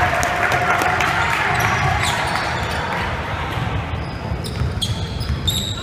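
A basketball game on a gym court: the ball bounces repeatedly on the hardwood over background crowd chatter. Short high sneaker squeaks come in the second half.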